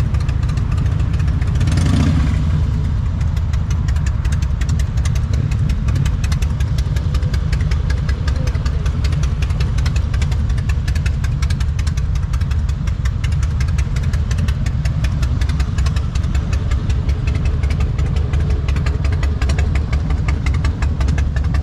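Motorcycle engine running steadily, with a rapid even beat of firing pulses under a strong low rumble. There is a short swell of noise about two seconds in.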